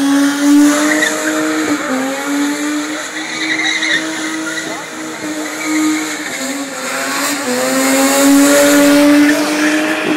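Rear-wheel-drive coupe's engine held at high revs as the car drifts in circles, its rear tyres spinning and sliding on wet tarmac. The revs drop briefly about two seconds in and again near seven seconds, then climb back.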